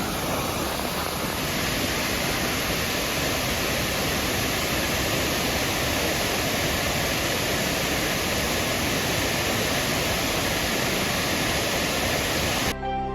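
Steady rush of the Wei Sawdong waterfall's water pouring into its pool. It cuts off suddenly near the end, where music starts.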